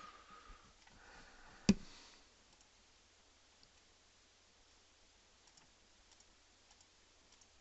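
Computer mouse clicking in a small room: faint scattered clicks, with one loud sharp click or knock about two seconds in. A short steady high tone sounds at the very start.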